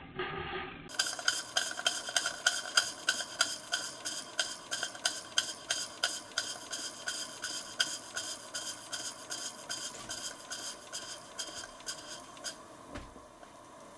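Model Markie traction engine's steam engine running, a steady beat of metallic clicks and exhaust puffs at about three to four a second. The beat stops near the end, followed by a single thump.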